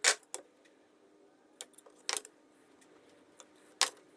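A few sharp, separate clicks and knocks of small cedar pieces and a marking jig being handled on the bench, spaced irregularly.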